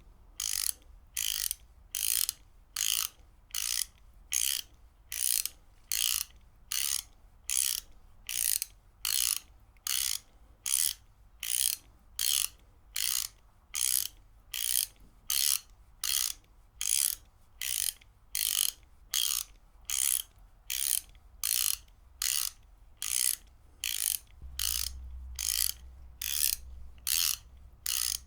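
Ratchet wrench clicking in short, evenly spaced bursts, a little under two a second, in a steady rhythm.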